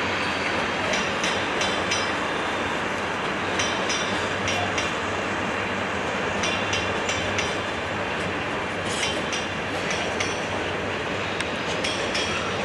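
Container freight train's wagons rolling past, a steady rumble with irregular metallic clicks and clatter from the wheels on the track.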